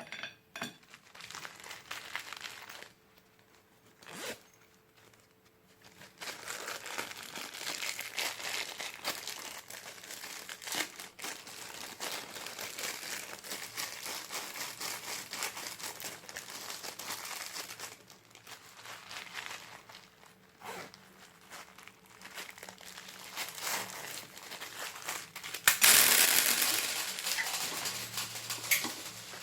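Glitter slime being worked by hand, squishing and crackling. A few separate clicks come in the first seconds, the crackling runs on steadily from about six seconds in, and it is loudest in a burst about 26 seconds in.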